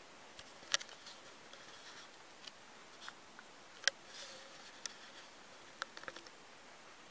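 Quiet room with a handful of faint, sharp clicks and taps, scattered and irregular; the two loudest come about a second in and about four seconds in.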